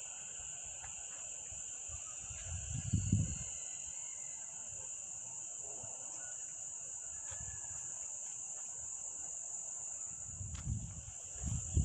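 Steady high-pitched drone of insects, with low rumbles of wind on the microphone about three seconds in and again near the end.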